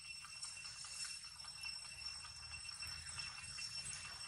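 Faint background with a steady high-pitched ringing made of several held tones, and a few soft ticks and rustles.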